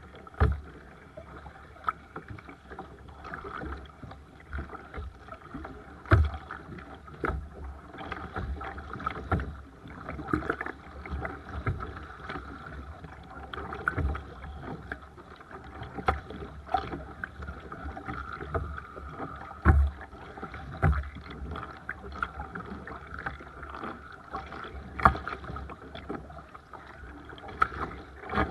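Sea kayak under paddle: a steady wash of water around the hull, broken every second or few by irregular sharp splashes and knocks.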